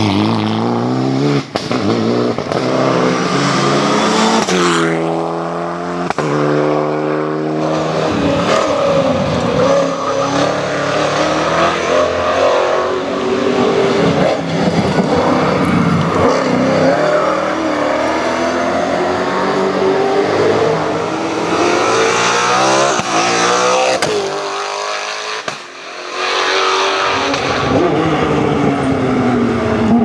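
Race car engines at full throttle up a hillclimb course, one car after another: each engine climbs in pitch through the gears with quick upshifts, over and over, first a Peugeot 206 rally car and then a BMW M3 race car. The sound dips briefly about 25 seconds in before another car comes through.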